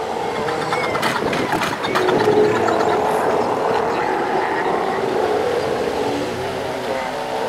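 Northern fur seal breeding colony: many seals calling at once in a dense, continuous din of overlapping pup bleats and adult roars, with a run of short clicks about a second in.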